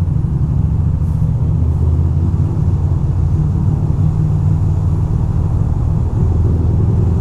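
2006 Ducati Monster 620's air-cooled L-twin engine running at a steady cruising speed, with a deep rumble of wind and road noise, inside a road tunnel.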